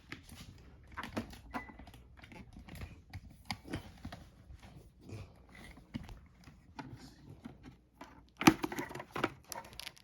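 Scattered plastic clicks and knocks from a full-face motorcycle helmet being handled and its visor brought down, with a louder clatter of knocks about eight and a half seconds in.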